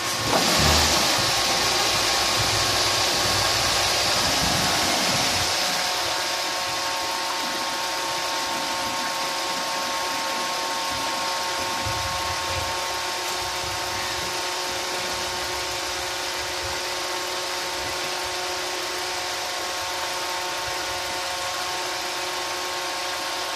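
Toyota VVT-i four-cylinder petrol engine running at idle with the bonnet open: a steady hiss and hum with a few constant whining tones, a little louder for the first five seconds, then settling. It is being run to circulate freshly added radiator coolant so the level drops and can be topped up.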